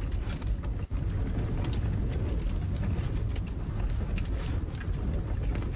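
Strong wind blowing, a steady low rumble with faint scattered clicks and rattles.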